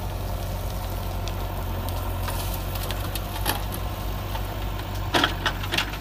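JCB 3DX backhoe loader's diesel engine running with a steady low drone while the backhoe works. A few sharp knocks come about five seconds in.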